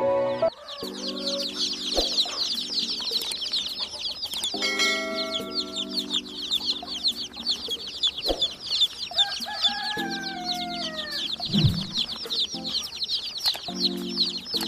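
Many baby chicks peeping together: a dense, continuous chorus of short, high, falling chirps overlapping one another, with music playing faintly underneath.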